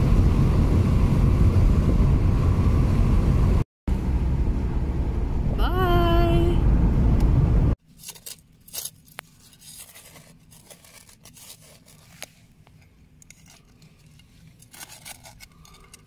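Loud, steady wind and road noise in an open-top convertible on the move, broken by a brief cut about four seconds in, with a short voice sound rising in pitch around six seconds. After about eight seconds this gives way to faint clicks and scrapes of a hand trowel digging in garden soil.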